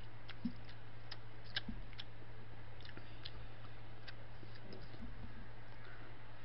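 Faint, scattered small clicks and ticks of wooden chopsticks working noodles in a paper instant-noodle cup, over a steady low hum.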